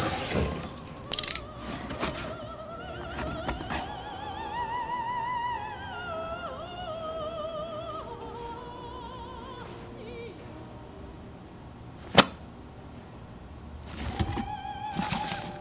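Operatic singing voice with strong vibrato, carrying a melody that rises and falls. Near the start there are a few short knocks, and about twelve seconds in there is one sharp click, from a cardboard box being cut open and handled.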